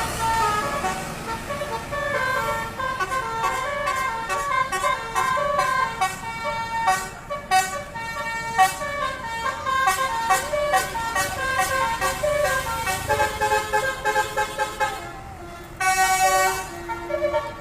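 Bus 'telolet' Basuri multi-tone musical horn playing a rapid melody of short, changing notes, with a louder burst near the end.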